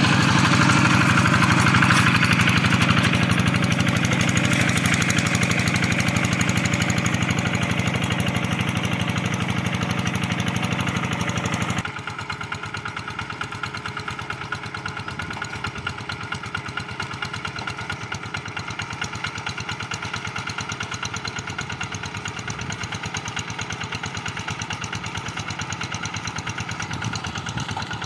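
Kubota RD85 single-cylinder diesel engine of a Quick G1000 walking tractor running steadily under load while harrowing a flooded rice paddy. About twelve seconds in it abruptly becomes quieter and more distant.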